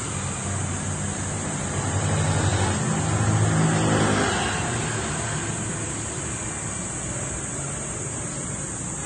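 A motor vehicle's engine passing on the road, growing louder to a peak about three to four seconds in and then fading away.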